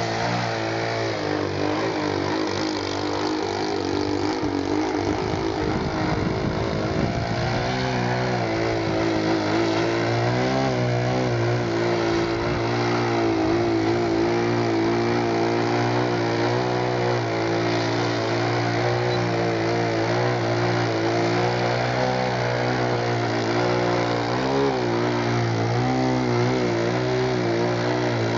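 Engine and propeller of a Wrong Way RC Slide 58 aerobatic model plane running steadily in a hover, its pitch wavering slightly up and down with small throttle changes.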